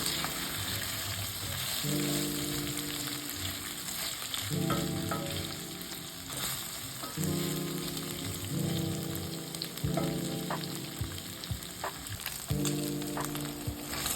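Beef with onion and chili sizzling in hot oil in a pan, with a spatula scraping and tapping the pan as it is stirred.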